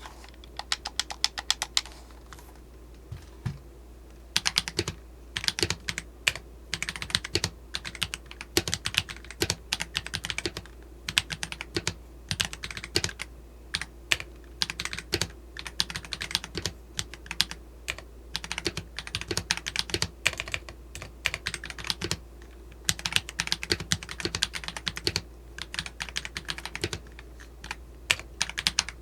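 Typing sound test on a freshly built Akko ACR64 60% mechanical keyboard, fitted with its stock internal foam and unmodded stabilizers. Key presses come in fast runs of clicky clacks with short breaks, including a pause of about two seconds near the start.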